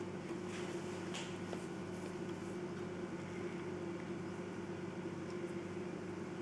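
Steady low machine hum, with a few faint soft handling noises about a second in.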